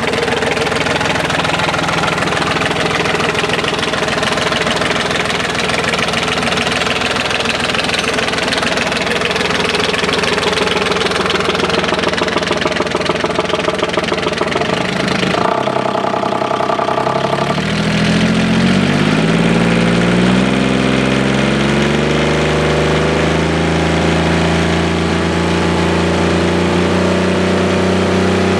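Daihatsu CLMD 30 marine diesel engine running steadily at idle, around 1,000 rpm. About halfway through it is throttled up: its pitch rises over several seconds, then holds at a higher speed of roughly 3,500–4,000 rpm.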